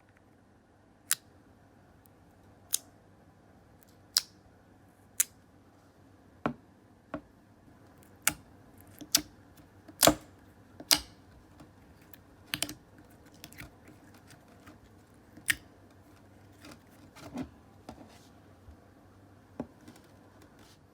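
Clear slime being handled, giving a string of sharp, irregular clicks and pops about one every second or two, the loudest near the middle.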